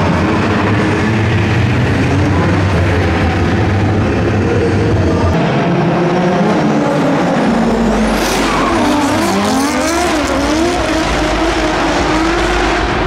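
Drift cars sliding together, their engines revving up and down with tyre squeal. The revs rise and fall sharply and repeatedly in the second half.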